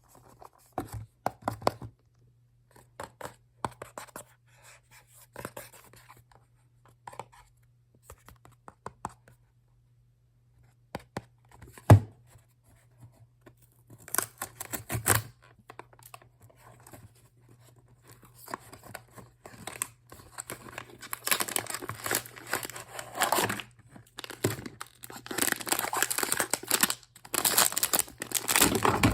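Blind-box packaging being opened by hand: scattered rustles and taps, a sharp click about twelve seconds in, then long stretches of tearing and crinkling wrapping toward the end.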